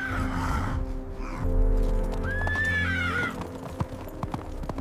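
A horse whinnies once about two seconds in, a high call held and then wavering down, over steady background music. A few sharp knocks follow near the end.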